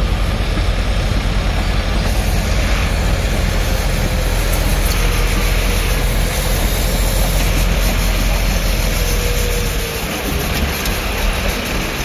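Heavy earthmoving machinery running on a construction site, a loud steady diesel engine rumble; the deep part of the rumble eases off near the end.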